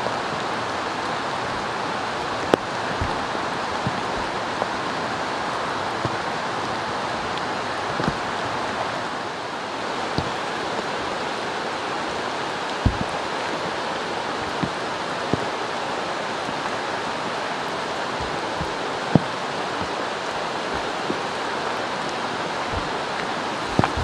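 Steady loud rushing of heavy rain and a rain-swollen mountain stream, with scattered light knocks and clicks as boots and gear are handled close by.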